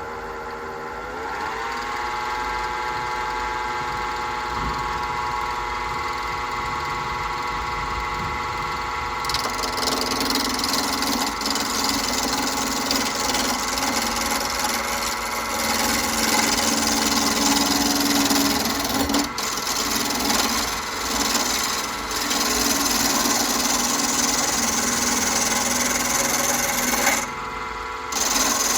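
Wood lathe motor running with a steady whine that rises in pitch about a second in as it speeds up, then holds. From about nine seconds in, a loud rasping noise of the spinning wooden pen blank being worked joins it, stopping briefly near the end.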